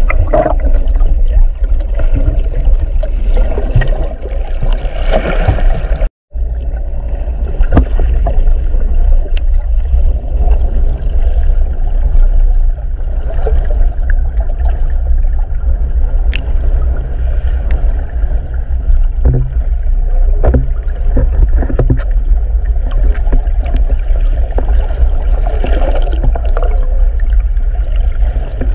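Underwater sound through a GoPro's waterproof housing while snorkelling: a steady low rumble of moving water with gurgling and small scattered clicks. It cuts out briefly about six seconds in.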